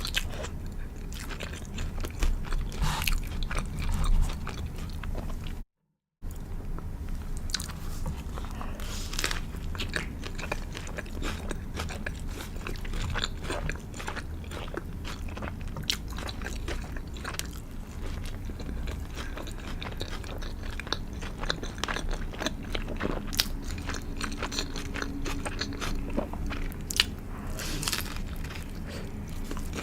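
Close-up eating sounds: someone biting into and chewing a crispy fried chicken burger, with crunching of the breaded coating and wet chewing. The sound cuts out completely for about half a second around six seconds in.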